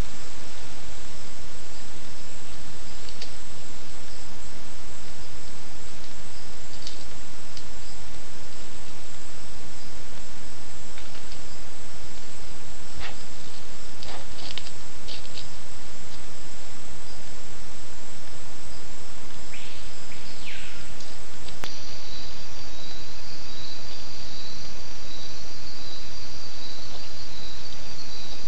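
Forest ambience through a camera-trap microphone: a loud steady hiss with a few faint clicks and a short falling call. About three-quarters of the way through it cuts abruptly to night-time insects, crickets chirring steadily at a high pitch over the same hiss.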